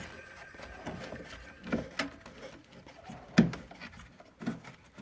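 A few scattered knocks and clicks from hand handling of the homemade belt sander and its parts, with no motor running. The loudest knock comes a little past the middle.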